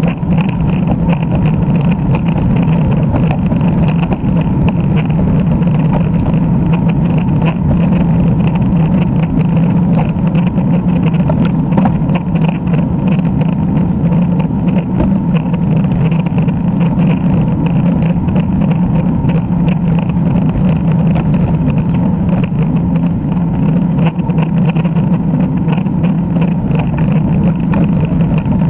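Steady wind and road noise on the microphone of a camera riding along on a road bike, a loud, even rumble with no break.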